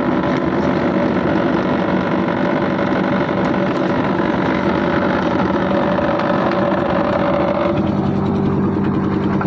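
Engine of concrete-pouring machinery running steadily. About eight seconds in, its note changes to a lower, steadier hum.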